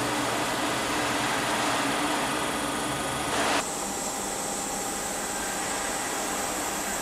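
Steady hum of a machining center's hydraulic power unit, its electric motor and pump running. About three and a half seconds in the sound changes abruptly to a steady machine hiss with a faint high whine.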